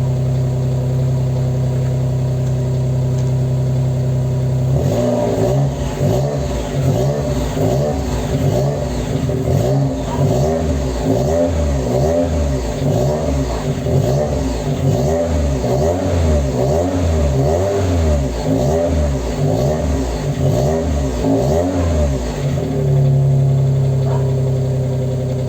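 Daihatsu L900's turbocharged three-cylinder EF-DET engine, exhaling through 2-inch piping and a screamer downpipe, idling steadily, then blipped up and down about once a second in repeated quick revs from about five seconds in, before dropping back to idle near the end.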